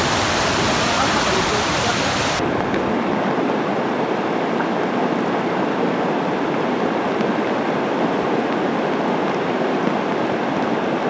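Muddy floodwater rushing in a steady, loud torrent, carrying debris from a landslide flood. The rushing sound changes abruptly in tone a little over two seconds in.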